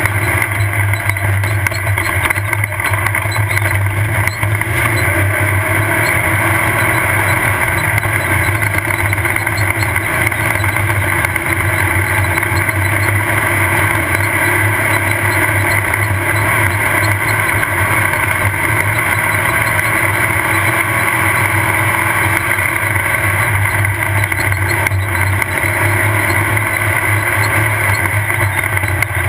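Off-road race car running at a steady engine speed, heard on board: a loud, unbroken engine drone with road noise.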